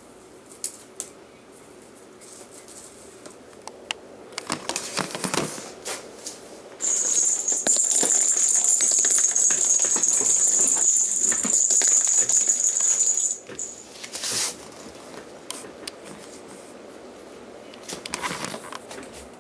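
A small plastic cat-toy ball rattles and jingles steadily for several seconds as it rolls across a hard floor, then stops abruptly. Scattered clicks and clatters of toys being batted and knocked about come before and after.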